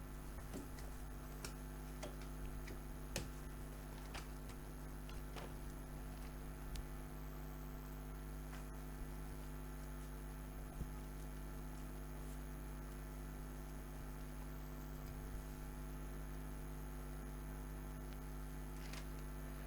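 Steady low electrical mains hum with a few faint clicks scattered through it.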